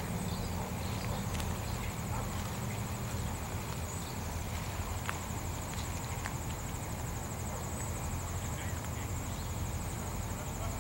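Freight train with diesel locomotives, a steady low rumble with a faint high whine and a few scattered clicks.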